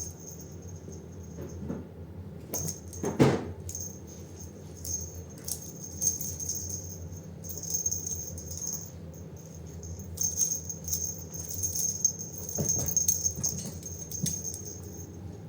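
A jingling cat toy shaken in repeated bursts while a kitten plays with it, with a louder knock about three seconds in. A steady low hum runs underneath.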